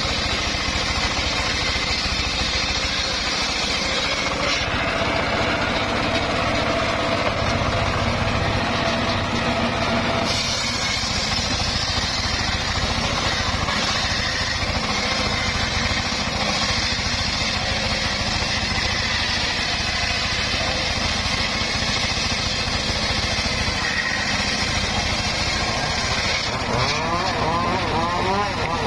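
Homemade engine-driven circular sawmill running steadily while sawing teak. Near the end, a whine starts wavering up and down in pitch.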